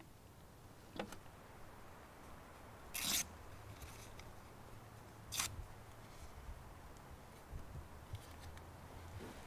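Three short, dry scrapes of hands handling a small paper card, about one, three and five and a half seconds in, the middle one the loudest, over a faint low hum.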